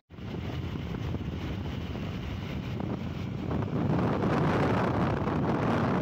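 Wind rushing over the microphone on a Yamaha R15 motorcycle cruising at highway speed, with road and engine noise blended in. It gets a little louder about halfway through.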